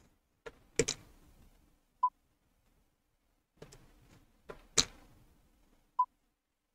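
Metal clicks and knocks of steel bar-stock parts being handled and dropped into an eddy current encircling test coil, twice, each followed about a second later by a short single-pitch beep from the ST-11 eddy current instrument as the test runs and the part passes.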